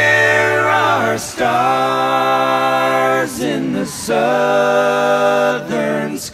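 Music: several voices singing long held chords, in three long phrases with short breaks between them.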